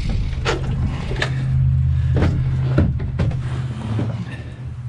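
Heater running inside a small wooden shed, a steady low hum, with several short knocks over it.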